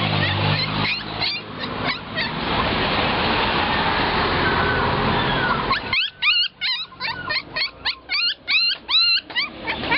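Puppies yipping and whimpering in short, high-pitched cries. At first a few yips come over a steady rushing background noise. About six seconds in, the noise drops away and a quick run of yips follows, about four a second.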